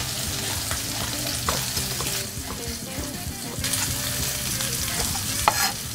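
Sliced red bell pepper sizzling in olive oil in a frying pan, a steady frying hiss, with a few sharp knife taps on a wooden cutting board as mushrooms are sliced.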